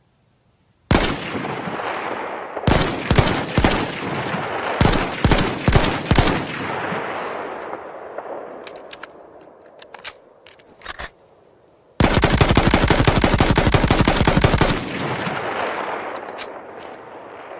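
Model 8 rifle sound effect: a single shot with a long echoing tail, then two quick strings of about four shots each. A few small sharp clicks follow, then a long rapid-fire burst of nearly three seconds that dies away in echo.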